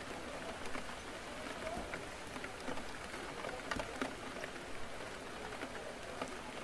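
Rain on a window pane: a steady hiss with scattered sharp drop taps. Soft, indistinct café chatter murmurs underneath.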